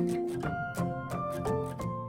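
Music: a melody of held notes stepping from pitch to pitch over light percussive clicks.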